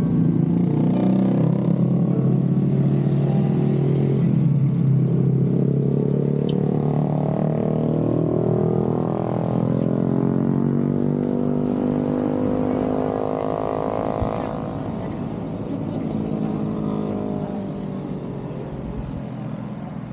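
Traffic of cars and motorbikes going round a hairpin bend, their engines rising and falling in pitch as they slow and accelerate past. Loudest at first, then slowly fading away.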